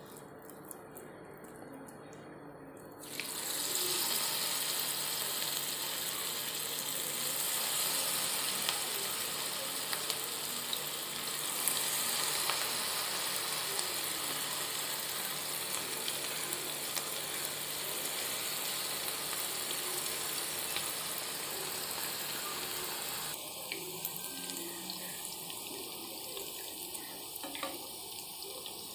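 Lumps of cabbage, maida and cornflour batter deep-frying in hot oil: a steady sizzling hiss that starts about three seconds in as the batter goes into the oil, getting a little quieter near the end.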